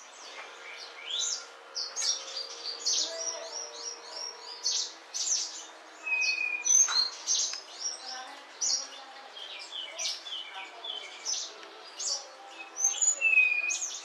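Songbirds chirping and twittering: a dense, fast run of short high chirps and trills, broken twice (about midway and near the end) by a clear short whistled note.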